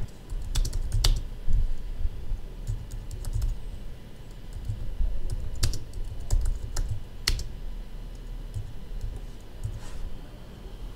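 Typing on a computer keyboard: irregular key clicks, a few of them much sharper than the rest.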